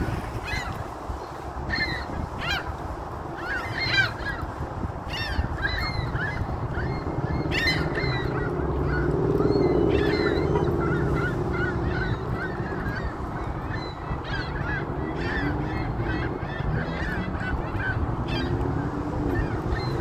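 A flock of gulls calling: many short, high, repeated calls overlapping, over a steady low rumble that swells about halfway through.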